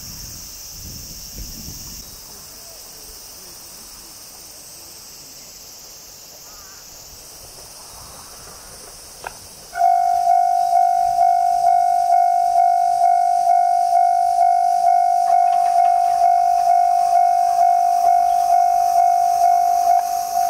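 Railway level-crossing warning bell starting up about ten seconds in: one ringing tone struck over and over, about two and a half times a second, loud over a steady high hiss. A sharp click comes just before it starts.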